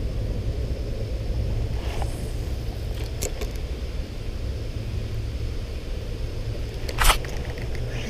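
Steady low outdoor rumble, with a few faint clicks and one sharp click about seven seconds in.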